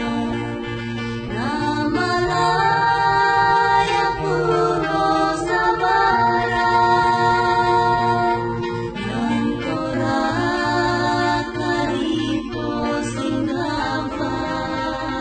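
Background music: a song with sung vocals holding long notes.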